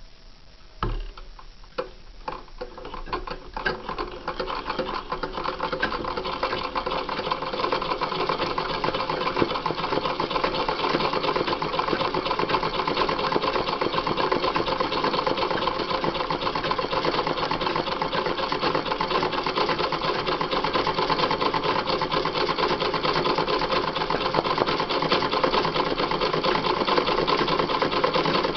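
Treadle sewing machine stitching free-motion embroidery: a few separate stitches at first, then picking up into fast, steady running.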